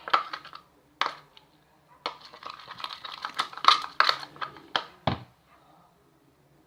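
Freshly mixed slime being stirred and pulled in its container: a run of sticky clicks, pops and scrapes, dying away about five seconds in. The slime is at the stage where it has set and is coming away from the container.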